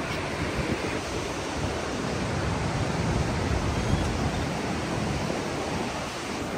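Ocean waves breaking and washing up the shore: a steady rushing noise that swells a little about halfway through.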